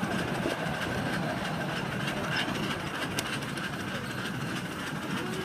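Ride-on miniature train running steadily along its track, its cars rattling and clacking, heard from aboard one of the cars.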